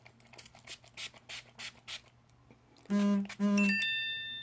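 Several quick spritzes of a cucumber face-mist primer spray bottle. Then comes the loudest part: two buzzy electronic tones half a second apart, followed by a high ringing chime that fades.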